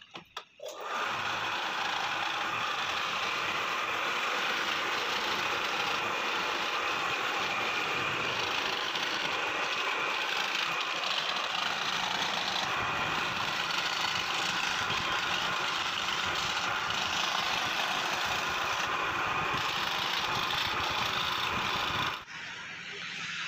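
Scroll saw blade cutting through wood with a fast, steady rattling rasp, starting about a second in and stopping abruptly near the end.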